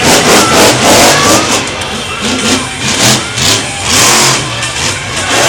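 Monster truck's supercharged V8 engine revving hard in repeated surges, rising and falling about once a second.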